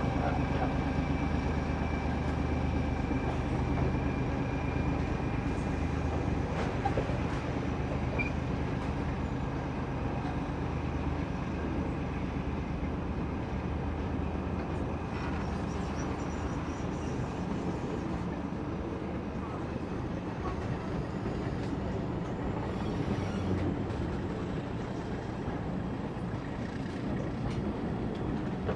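A train running: a steady low rumble with a low hum that slowly grows fainter.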